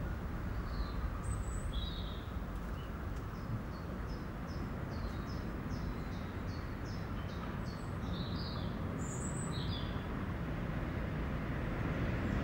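Birds chirping over a steady low background rumble; one bird repeats a short high note about two or three times a second through much of it.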